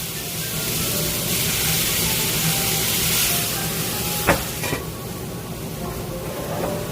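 Seasoned scallops sizzling as they cook, a steady hiss that swells through the middle, with a sharp click about four seconds in and a smaller one just after.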